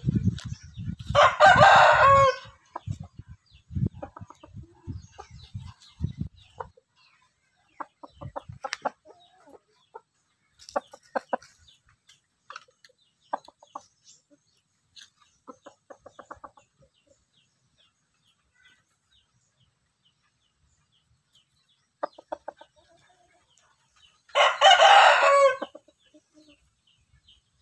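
A rooster crowing twice, once near the start and again near the end, each crow loud and about a second and a half long. Dull low thuds in the first several seconds, and short soft clucks and ticks in between.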